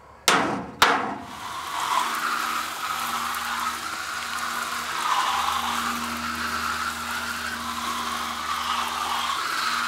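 Garden hose spray nozzle showering water onto seedling trays: a steady hiss of spray and patter. It is preceded by two sharp smacks within the first second.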